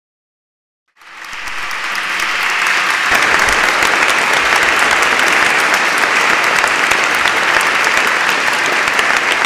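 A large audience applauding, many hands clapping together. It begins about a second in, quickly builds, then holds steady.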